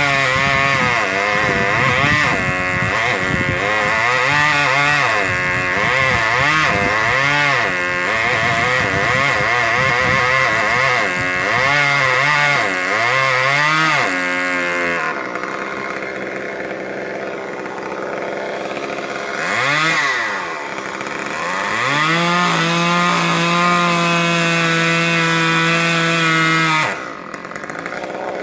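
Gasoline chainsaw cutting into a pine trunk, its engine note swinging up and down as the chain bites for about fifteen seconds. It then settles lower, revs up again to hold a steady high note for several seconds, and drops back near the end.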